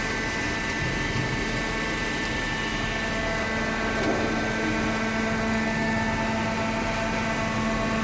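Hydraulic cardboard baler's electric motor and hydraulic pump running, a steady hum with an unchanging pitch.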